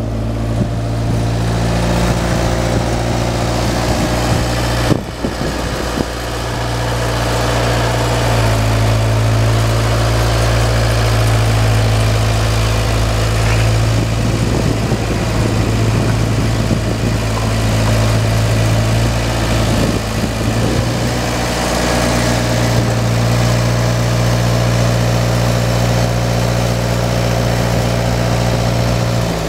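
Waldon 4500 articulating front loader's four-cylinder Perkins engine running steadily, its note shifting slightly a couple of times, with a brief drop about five seconds in.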